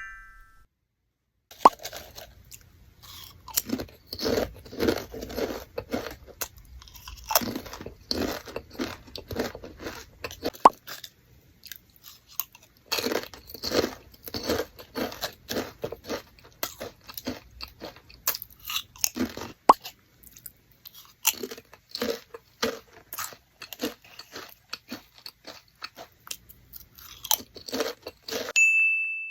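Close-up crunching and chewing of Pringles Mini stacked potato crisps: repeated crisp bites and crackly chewing that start about a second and a half in, with a couple of short lulls.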